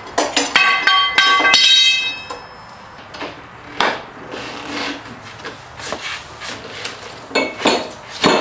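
Steel parts of a manual tire changer clanking as the bead breaker is worked around the tyre. A quick run of ringing metal strikes comes in the first two seconds, then scattered knocks, with a cluster near the end.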